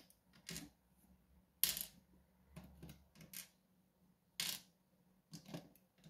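Steel tweezers and small metal lock pins clicking against the metal housing of a Medeco cam lock as its pins are taken out. About six sharp, separate clicks come a second or so apart, the loudest just under two seconds in.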